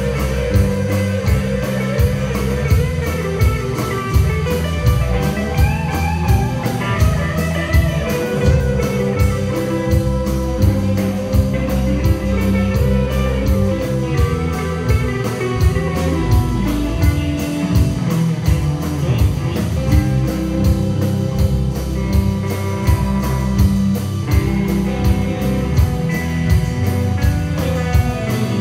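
Live rock band playing: electric and acoustic guitars over drums, with a steady beat.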